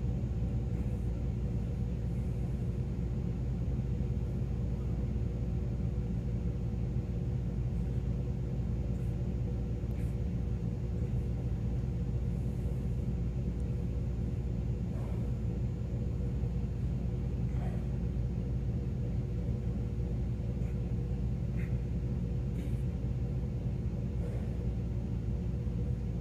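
Steady low rumble and hum of a large building's ventilation system, carrying a couple of steady tones, with a few faint ticks.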